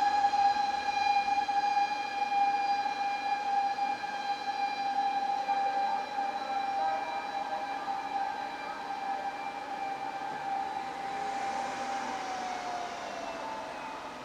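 Fire engine siren wailing: one long tone held steady, then sliding down in pitch near the end while it fades away.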